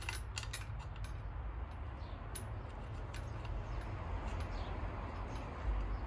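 A bicycle chain being handled, its links giving a few light metallic clicks, most of them in the first second and fainter ones later, over a low steady hum, with a low thump near the end.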